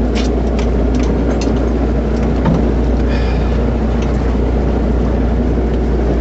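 Boat engine running steadily with a low drone, with a few light knocks and rattles in the first second and a half.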